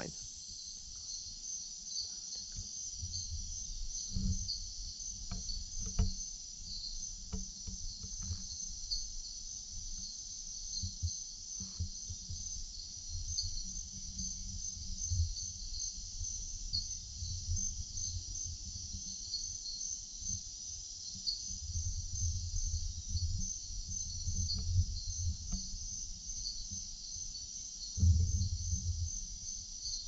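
Steady, dense, high-pitched chorus of night insects in tropical rainforest, unbroken throughout. A low rumble comes and goes beneath it, strongest in the last third, with a few faint clicks.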